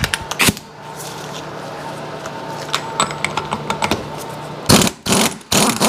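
Pneumatic impact wrench on the flywheel nut of a Sea-Doo 951 DI two-stroke engine: a few clicks, then two short bursts of hammering near the end.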